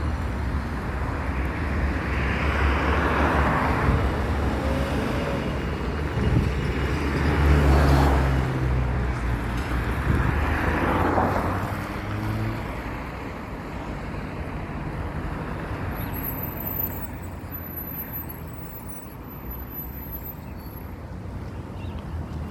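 Road traffic: vehicles passing by with a low rumble, three passes swelling and fading in the first half, then a quieter steady traffic noise.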